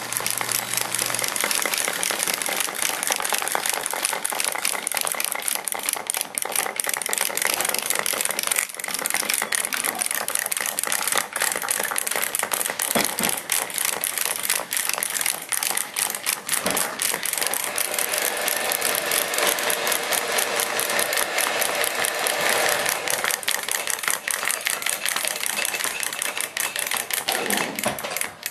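Several wind-up clockwork hopping toys running at once: a steady, dense rattle of fast clicking from their spring-driven mechanisms.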